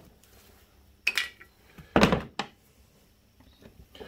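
Two sharp knocks of a thin metal pick tool and plastic push-pin fasteners against the hard plastic engine side cover of an ATV, about one and two seconds in. The first is followed by a brief ringing, and the second, louder one is followed by a small tap.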